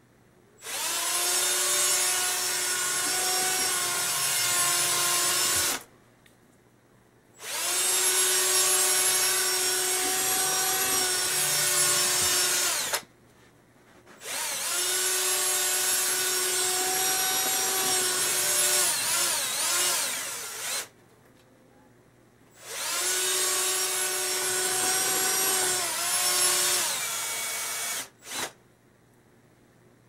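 Cordless drill spinning a brush through the heat exchanger tubes of an outdoor wood boiler, one tube at a time. It runs four times, each run a steady whine of about five seconds that winds down as it stops, with short pauses between runs. A brief last burst comes near the end.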